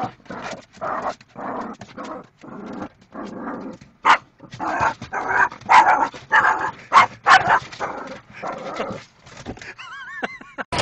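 Dog barking at a moving windshield wiper in short, rapid bursts, about two a second.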